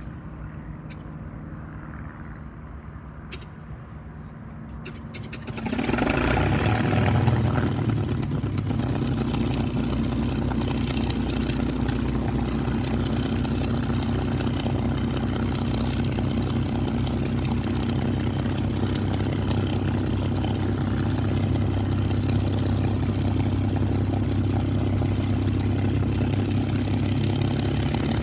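P-51 Mustang's V12 piston engine starting: a quieter steady hum for the first few seconds, then about five seconds in the engine catches with a sudden jump in loudness and settles into a steady run.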